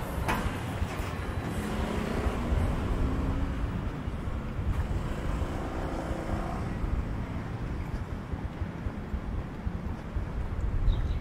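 Outdoor ambience: a constant low rumble of wind buffeting the microphone, with a faint engine hum passing in the middle.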